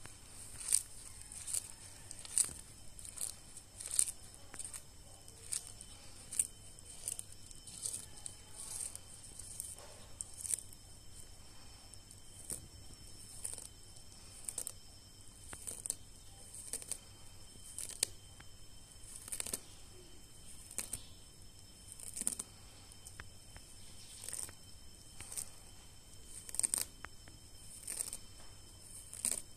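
Sulcata tortoise biting and tearing at fresh leaves: crisp crunching rips, roughly one or two a second in uneven runs.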